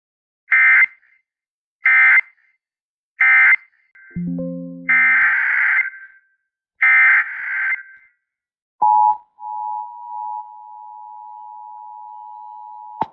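Emergency Alert System digital data bursts: three short screeches about a second apart, the end-of-message code closing the previous warning, then longer header bursts opening the next alert, with a brief low tone among them. About two-thirds of the way in, the steady two-tone EAS attention signal starts.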